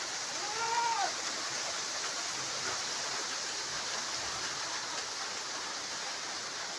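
Steady rush of strong wind with light drizzle. About half a second in, a brief call rises and falls in pitch.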